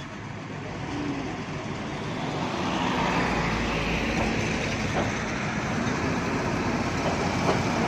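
Heavy vehicle engine and road noise, growing louder over the first three seconds and then running steadily.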